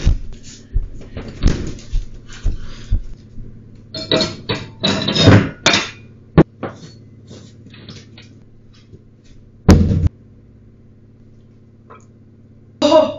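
Irregular knocks and clunks of condiment bottles and a bowl being handled and set down on a kitchen counter, with a sharp click about six seconds in and a heavier thump near ten seconds. A steady low hum runs underneath.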